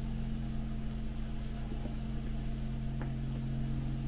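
A steady low hum with two faint light clicks, about one and a half and three seconds in, of a metal spoon against a porridge bowl.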